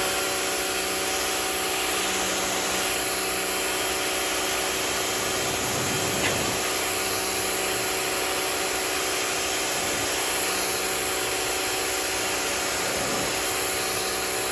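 Rock&Rocker HWY12 pressure washer running steadily: its pump motor's steady hum under the hiss of the water jet blasting the concrete patio clean.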